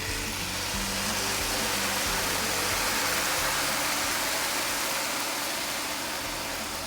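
Meat stock poured onto rice frying in a hot pan, sizzling in a steady hiss.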